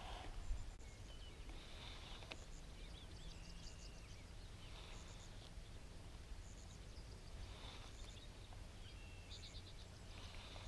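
Faint outdoor ambience: small birds giving short, high chirping phrases every second or two over a steady low rumble.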